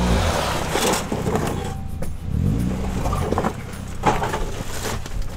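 Suzuki Jimny's engine running at low speed as it crawls over rock, revving up about two seconds in, with several knocks and crunches from the rock.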